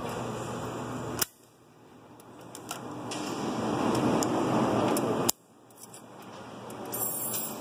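Snap ring pliers working the snap ring on a truck transmission input shaft: small sharp metal clicks over a steady workshop hum. The hum cuts off abruptly twice, about a second in and again about five seconds in, each time right after a click, and swells back up slowly afterwards.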